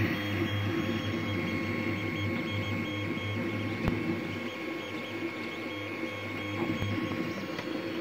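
Tevo Tornado 3D printer at work: its stepper motors whine in short, stop-start tones that keep changing pitch as the print head moves, over the steady hum of its cooling fans. A single sharp click about four seconds in.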